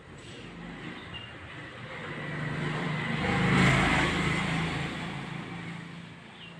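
A motor vehicle passing by, its engine sound swelling steadily to a peak a little past the middle and then fading away.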